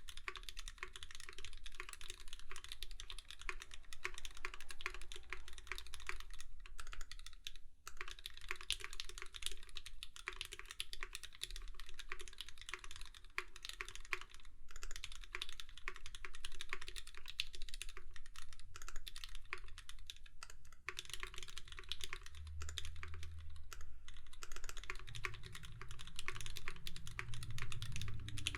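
Fast continuous typing on an LZ CLS mechanical keyboard with aluminum plate, Krytox-lubed Gateron Milky Yellow linear switches and PBT keycaps: a dense stream of keystroke clacks, with a short pause about seven seconds in.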